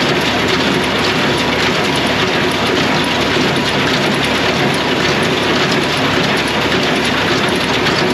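New Holland small square baler running as it picks up and bales a windrow of grass hay, a loud, steady mechanical rattle.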